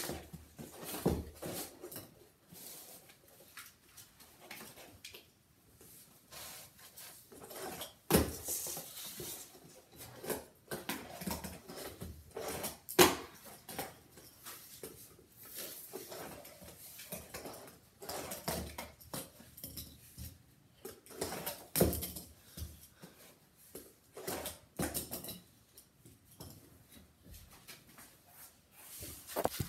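Fingerboard clacking and rolling on homemade cardboard ramps over a felt table, with irregular small taps and knocks and a few sharper, louder clacks.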